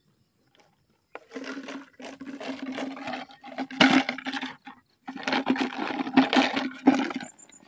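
A Labrador puppy chewing a plastic water bottle: two spells of loud crinkling and crackling plastic, the first starting about a second in and the second about five seconds in.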